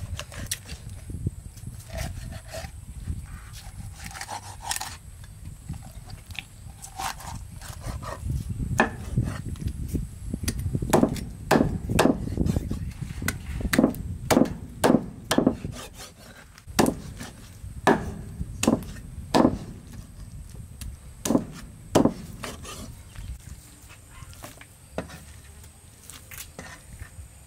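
Meat cleaver chopping a whole raw chicken through flesh and bone on a thick wooden chopping block: a run of sharp, irregular chops, loudest and most frequent in the middle.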